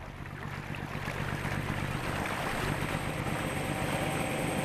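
Motorboat under way: a steady engine hum under the rush of its wake and wind on the microphone.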